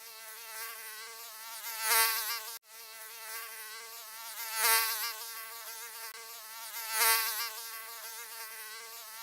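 Mosquito buzzing sound effect: a high, whining wingbeat buzz with a wavering pitch that swells loud about every two and a half seconds, as if flying past the ear. It cuts out for a moment right at the start and again about two and a half seconds in.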